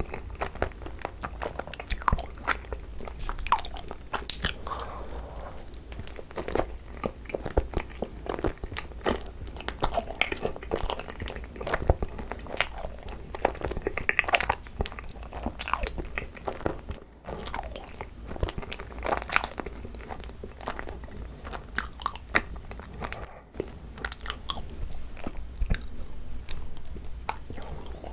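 Close-miked chewing of soft, sticky cream-cheese-filled Korean rice cakes (tteok), with many quick wet mouth clicks and smacks going on without a break.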